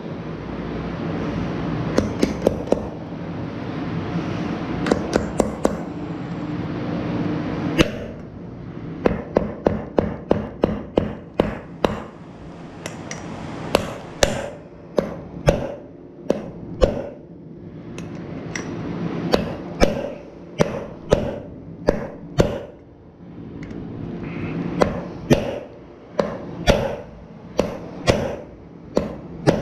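Hammer striking a steel race driver, driving new bearing races into the front wheel hub of a Scag Tiger Cat mower: sharp metal-on-metal blows, a few at first, then quick runs of strikes from about eight seconds in.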